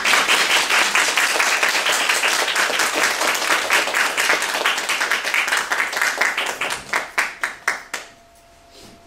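Small audience applauding, the clapping thinning to a few scattered claps and stopping about eight seconds in.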